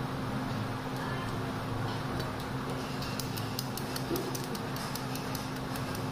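Quick light clicking, several clicks a second starting about two seconds in, as a metal cake turntable is spun with a palette knife held against the cake board, over a steady low hum.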